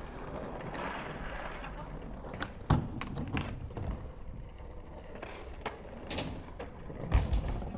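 Skateboard rolling with a rough rumble, broken by sharp clacks of the board: the loudest comes a little under three seconds in, and a few more are scattered after it. Near the end comes a heavy low thud.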